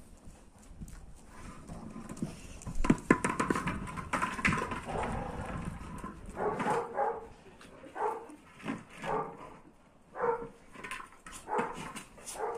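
A pack of large dogs scuffling over a ball toy, with a few sharp knocks early on, then short barks and whines in bursts about once a second through the second half.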